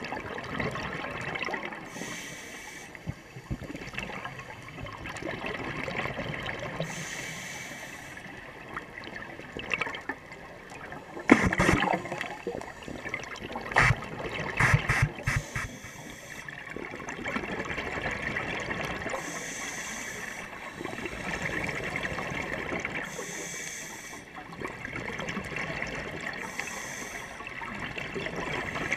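Scuba diver's breathing through a regulator heard underwater: a hiss every few seconds and a gurgle and rush of exhaled bubbles. A cluster of sharp knocks and clicks comes in the middle.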